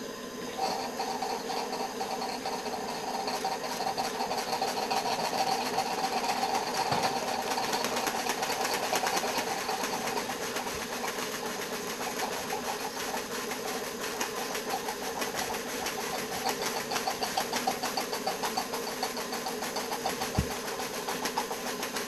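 Small PM Research 6CI horizontal model steam engine running with its cylinder drain valves open: a rapid, even chuffing over a steady hiss of steam, as condensation is still being blown out of the line. It picks up about half a second in, and a single sharp knock comes near the end.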